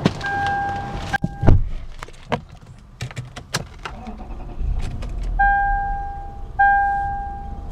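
Clicks and knocks, then a car's warning chime sounding in steady, evenly pitched tones about a second long, repeating with short gaps.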